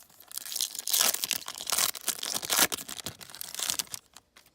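Foil wrapper of a trading card pack being torn open and crinkled by hand, a dense crackling that goes on for about four seconds, with a few louder rips, and stops just before the end.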